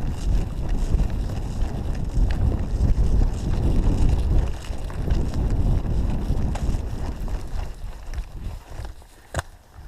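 Heavy low rumble of wind buffeting a body-worn camera microphone, with footfalls, as a person sprints across open ground; it eases about eight seconds in, and a single sharp click comes near the end.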